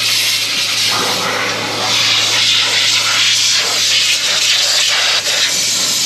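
Compressed air hissing steadily from a long air wand as chaff and dust are blown off a Case IH 1680 combine, with a steady low hum underneath.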